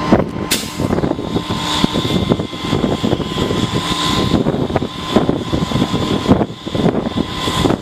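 A vehicle running: a loud, steady mechanical noise with a crackling rattle through it.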